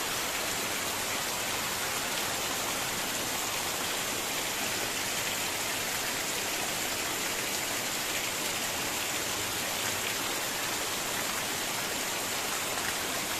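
Heavy rain falling steadily on a corrugated roof and dense foliage, with runoff pouring off the roof edge. A dense, even hiss with no breaks.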